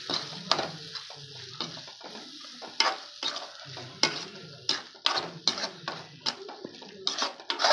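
Perforated metal ladle stirring and scraping onion and masala in a metal kadai: irregular clinks and scrapes of metal on the pan, coming faster and louder near the end, over a faint sizzle of the sautéing mixture.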